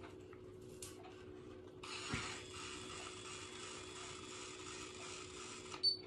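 A steady hiss for about four seconds while a hot BaByliss hair styler is clamped on a section of hair, with a soft thump as it starts. It cuts off with a sharp click and a short high beep near the end.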